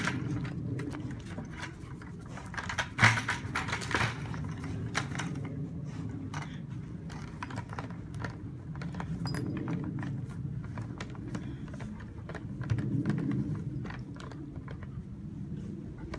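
German Shepherd dog knocking about, pushing and mouthing an empty 5-gallon plastic bucket: irregular plastic knocks and scrapes, with the bucket's wire handle rattling. There is a louder burst of knocks about three seconds in.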